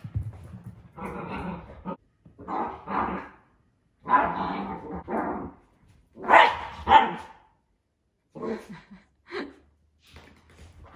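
Miniature dachshunds barking and growling in play, in a string of short bursts with pauses between.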